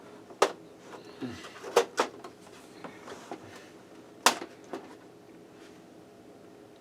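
Sharp plastic clicks and knocks from the Macintosh LC's case as its snap-on top cover is worked loose by hand, the loudest about four seconds in.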